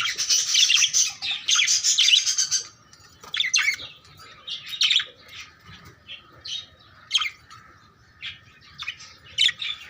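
Budgerigars chirping and chattering: a dense run of overlapping high chirps for the first three seconds or so, then scattered single chirps.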